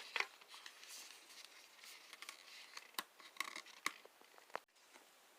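Plastic clamshell knife packaging being handled and opened: scattered light crinkling and clicks, with a few sharper snaps and ticks in the last couple of seconds before it goes quiet.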